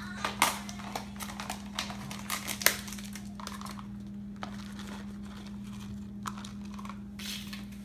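Clear plastic tub of shredded cheese handled and tipped over a pan: scattered clicks, taps and crinkles of the plastic, thickest in the first few seconds with one sharper tap about two and a half seconds in, over a steady hum.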